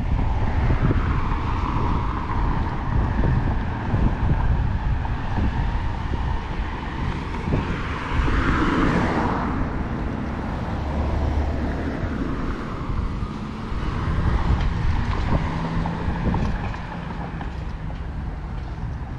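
Wind buffeting the microphone with a steady rumble, over road traffic passing on the street; the loudest vehicle swells up and fades away about halfway through.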